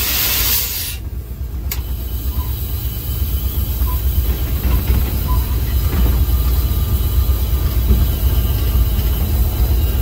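EMD GT36HCW diesel locomotive running along the line, a steady low rumble from engine and wheels. A loud hiss for about the first second cuts off suddenly.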